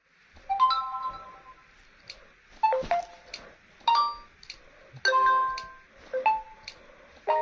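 Realme C15 smartphone playing its notification tones one after another: about six short chimes, each a few quick bright notes that ring and fade, a second or so apart. Faint short clicks come between them.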